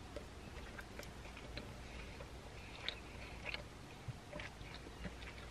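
A person biting into and chewing a mouthful of McDonald's Steakhouse Stack burger with her mouth closed: faint, irregular small clicks of chewing.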